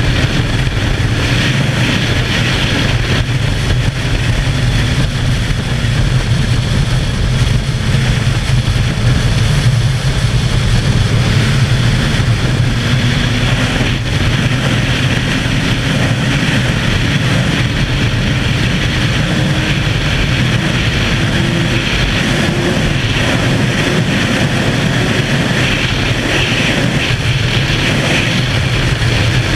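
Sports bike engine running hard at speed under heavy wind rush on the microphone, its pitch climbing slowly as the bike accelerates.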